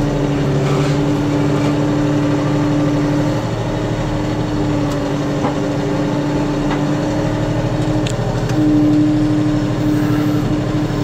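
Kioti tractor's diesel engine running steadily, heard from inside the cab as the tractor is driven. Its note shifts a little about three and a half seconds in and gets louder about eight and a half seconds in.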